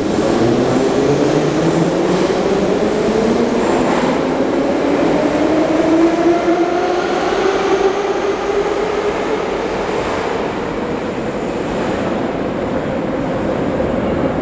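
Kyiv metro train pulling out of a station: the traction motors whine, rising steadily in pitch for about ten seconds as the train gathers speed, then levelling off, over the rumble of the wheels on the rails.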